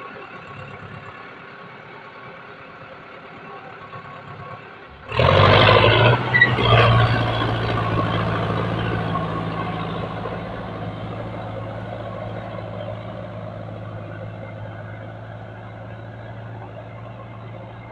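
Sonalika tractor's diesel engine running under load as it hauls a loaded brick trailer through deep mud and water. It turns suddenly loud and close about five seconds in, then fades slowly as the tractor moves off.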